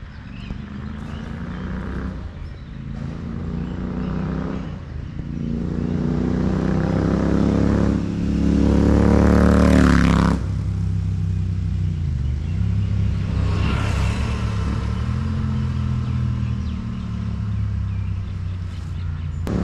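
Royal Enfield Super Meteor 650's parallel-twin running through a Rhino Racing aftermarket exhaust as the bike accelerates through the gears toward and past: the engine note rises in pitch, falls back at each shift, and grows louder to a peak about ten seconds in. It then drops off abruptly and rises once more near fourteen seconds.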